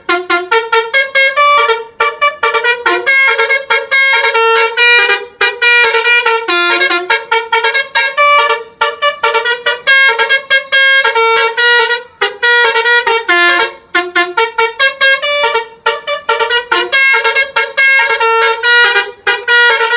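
A bus's Basuri telolet horn playing a melody: short pitched honks follow one another quickly, changing note several times a second, in phrases broken by brief pauses.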